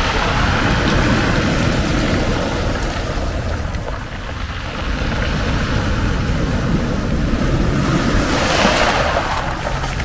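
Mediterranean surf breaking and washing up over a pebble beach, the foam hissing across the stones. A wave surges in louder near the end.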